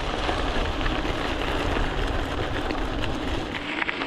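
Gravel bike tyres rolling fast over a loose gravel track, with wind rumbling on the chest-mounted camera's microphone. The deep wind rumble drops away near the end.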